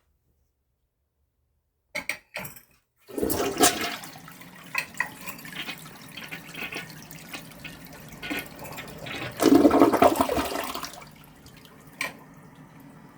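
Contrac toilet flushing with its siphon jet plugged: a few clicks, then water rushing through the bowl for about eight seconds, loudest in a surge near the end, before easing to a quieter trickle of refill.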